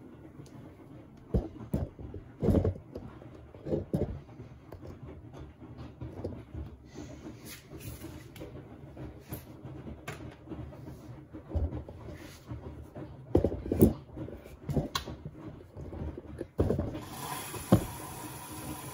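A Beko WMB71642W washing machine being handled and set going, with a series of separate clunks and knocks. About seventeen seconds in, a steady rush of water starts as the machine begins to fill for the wash.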